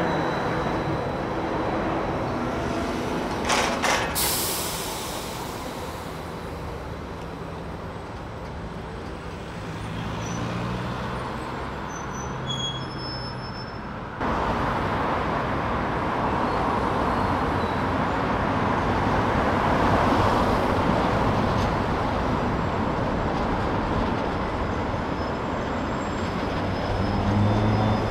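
City street traffic: a trolleybus passing close by with a short hiss about four seconds in. After a sudden change about halfway through, steady road traffic follows, with trams and cars going past.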